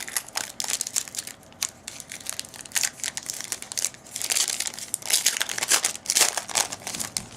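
Foil wrappers of trading card packs crinkling and tearing as they are opened by hand, in irregular bursts, loudest about five to six seconds in.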